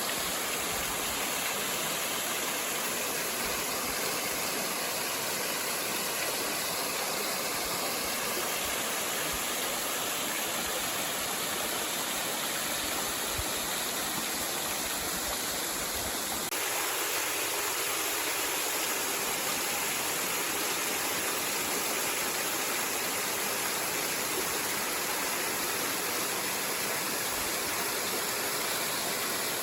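Waterfall: a steady rush of falling water, with a slight step up in level about sixteen seconds in.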